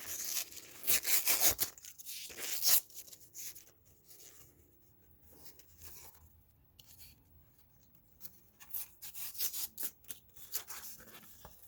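Stiff plastic blister packaging being pried, rubbed and torn at by hand, crackling and scraping in irregular bursts. The crackles are loudest in the first three seconds, thin out in the middle, and come in a quick run near the end.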